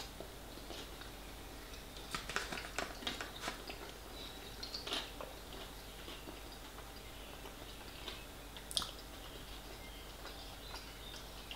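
A man chewing a mouthful of steak pie with a dumpling crust, close to the microphone: soft, wet mouth clicks coming in clusters about two to three and a half seconds in and again near five seconds, with one sharper click near nine seconds.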